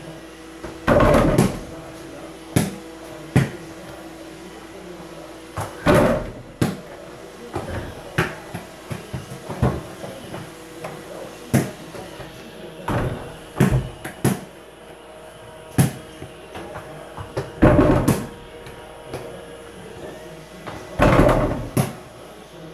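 Small basketball striking an over-the-door mini hoop and rattling the door, with lighter bounces and taps between shots. The heavier rattling knocks come about 1, 6, 18 and 21 seconds in.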